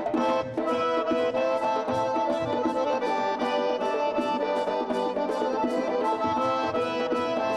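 Traditional Circassian dance tune played on accordion, with a steady beat of about three strokes a second.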